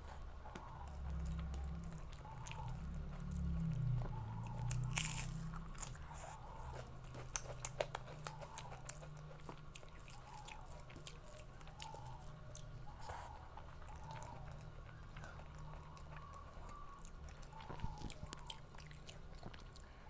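Close-miked chewing and biting of food, with crisp crunches and many sharp wet mouth clicks, more of them around a third of the way in, over a steady low hum.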